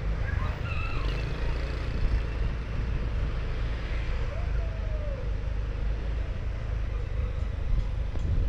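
Street traffic running steadily: a low rumble of motor vehicles on the road.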